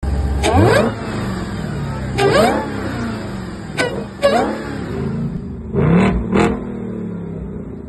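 Car engine revved in short throttle blips, each rising quickly in pitch and dropping back to idle. There are four blips in the first four and a half seconds, then two more quick revs close together near six seconds.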